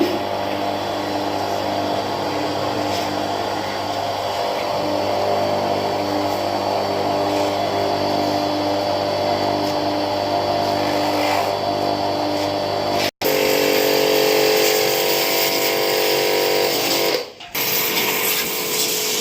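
Electric high-pressure car washer running with a steady motor hum. The sound cuts out abruptly for a moment about two-thirds of the way in, comes back louder, and dips again briefly near the end.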